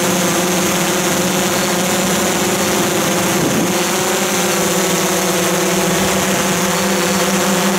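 Multirotor drone's electric motors and propellers humming steadily in flight, heard close from the camera on board, with a brief dip in pitch about three and a half seconds in.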